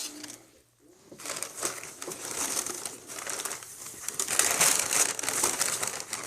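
Plastic crinkling and rustling, a dense run of small crackles, as card sleeves and trading cards are handled. A brief lull comes just before a second in, then the crinkling continues.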